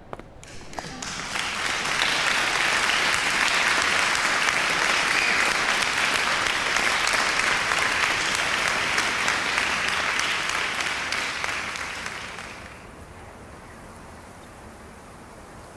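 Applause, many hands clapping: it swells over the first couple of seconds, holds steady, and dies away about twelve seconds in, leaving a low steady hiss.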